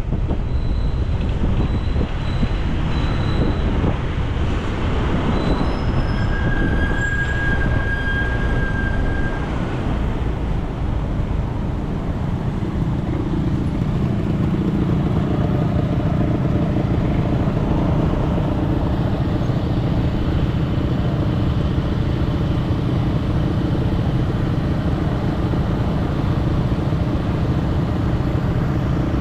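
Steady rumble of a moving vehicle, with a few short high beeps in the first few seconds and a steady high tone for about three seconds. A steady low hum comes in about halfway through.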